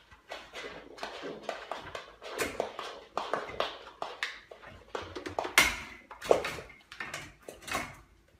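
Irregular tapping and knocking from a small goat moving at a metal baby gate on a wooden floor, several light taps a second with one louder knock about five and a half seconds in and another just after.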